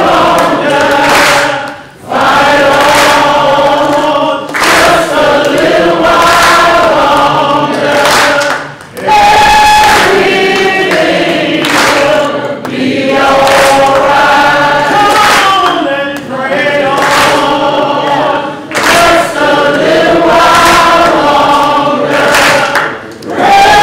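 A congregation singing a song together in phrases of long held notes, with hands clapping along.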